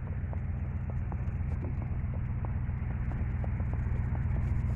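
Vehicle engine running steadily with a low rumble, light clicks scattered over it.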